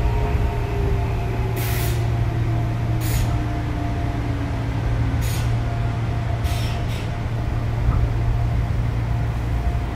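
Odakyu 8000 series chopper-controlled electric train running, with a steady low hum and a whine that falls in pitch over the first five seconds as the train slows. Several short hisses of air come from the brakes.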